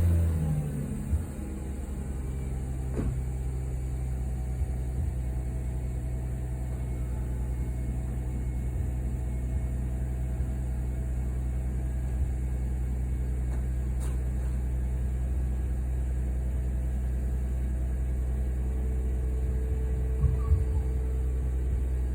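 A 2004 Mercedes-Benz W211 E320 engine catches on a cold start with a brief flare right at the beginning, then settles into a steady fast idle heard through its stock exhaust.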